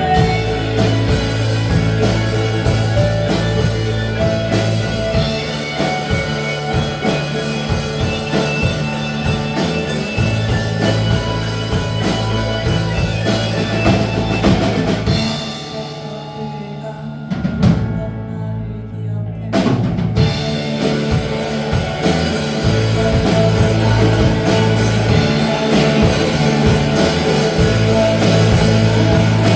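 Rock band playing live with a full drum kit and bass. About halfway through, the band drops to a sparse, quieter break for a few seconds, then comes back in full.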